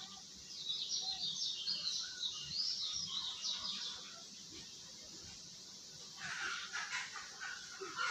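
Small birds chirping, a quick run of high twittering notes lasting about three seconds. Near the end comes a second, lower flurry of chirps and scratchy sounds.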